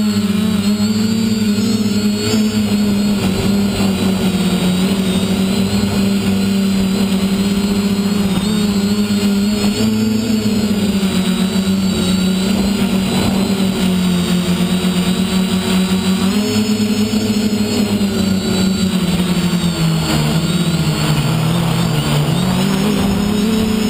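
Electric motors and propellers of an FPV quadcopter, heard through its onboard camera, buzzing steadily in flight. The pitch wavers with throttle, drops lower a couple of seconds before the end, then climbs back.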